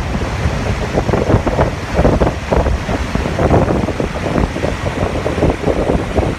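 A river in spate rushing through a dam's open gates, a loud steady sound of churning white water, mixed with uneven wind buffeting on the microphone.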